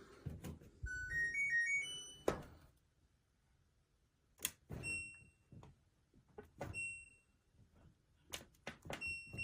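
Clothes dryer's electronic control panel being started: a short rising power-on chime of several beeps about a second in, then button or door clicks and a single high beep about every two seconds as buttons are pressed.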